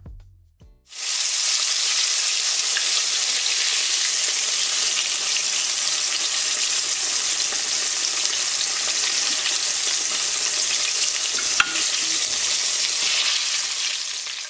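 Starch-coated meat pieces deep-frying in hot oil in a wok: a steady, even sizzle that starts about a second in. There is one faint click late on.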